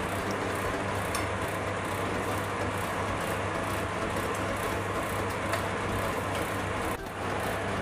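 Steady hiss and low hum of milk thickened with milk powder cooking down in a steel kadhai on a gas stove, stirred with a metal spatula as it reduces to khoya.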